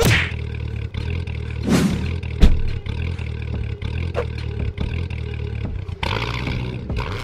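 A van engine idling steadily, with cartoon sound effects over it: a sharp hit at the start, a falling whoosh just before two seconds in, then a heavy thump, and a burst of rushing noise near the end.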